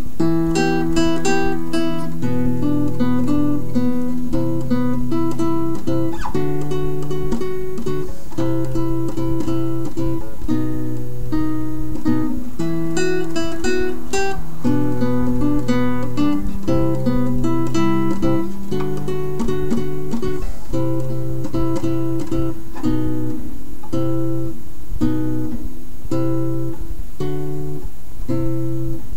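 Instrumental background music.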